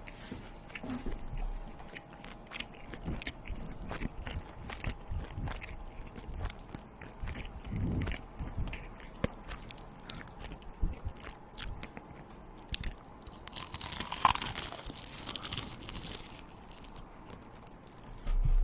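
A person chewing and biting into crunchy food close to the microphone: irregular sharp crunches, with a longer, denser crackly stretch about two-thirds of the way through.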